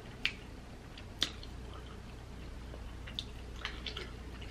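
Quiet close-miked table sounds: a few sharp clicks, the loudest about a second in, then a run of softer ticks near the end.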